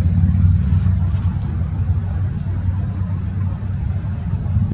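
Low, steady rumble of an approaching diesel freight locomotive.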